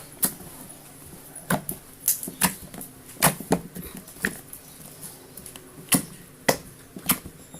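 Firm slime being squeezed and pressed by hand, making irregular sharp clicks and pops, about a dozen of them.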